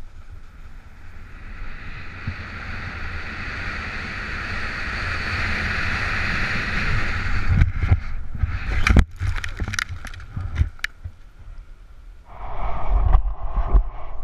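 Snowboard sliding over snow, with wind rushing past the helmet-mounted microphone; the hiss grows steadily louder as speed builds. After about eight seconds come a string of sharp knocks and scrapes, and near the end a louder rush of board and wind.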